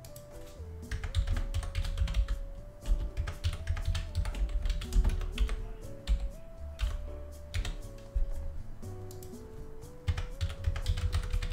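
Computer keyboard typing in quick bursts of key clicks with short pauses between them, over background music with a simple stepping melody and bass.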